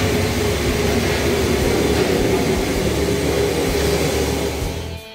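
Steady loud roar of a commercial kitchen's gas cooking range and overhead extraction hood, cutting off near the end.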